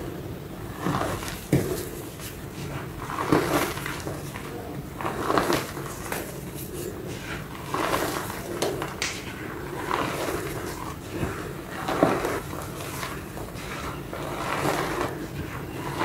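Hands crushing and crumbling blocks of reformed gym chalk in a bed of loose chalk powder. Dry crunches and crumbles come in bursts about every one to two seconds, over a low steady hum.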